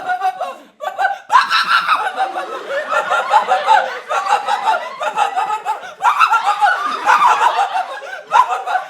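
Several people laughing loudly together, with overlapping voices that swell about a second in.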